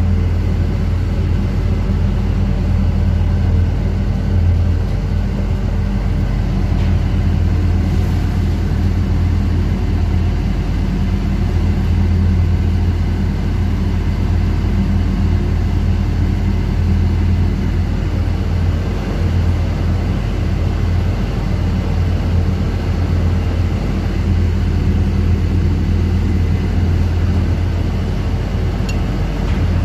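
Steady, loud, low-pitched drone of running machinery aboard a fishing boat, even and unchanging throughout.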